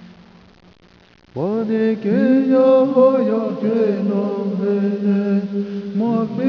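Unaccompanied chanting voice. A held note dies away, then about a second and a half in a new phrase begins, sliding up into long held notes with bends in pitch.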